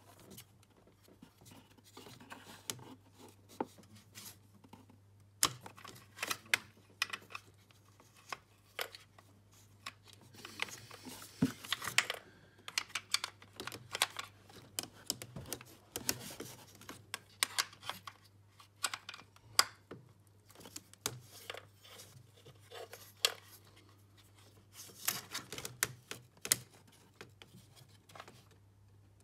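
Irregular metallic clicks, taps and short scrapes of a bent 10mm spanner being worked and repositioned on the fuel rail bolts of a BMW M54 engine, loosening them a little at a time.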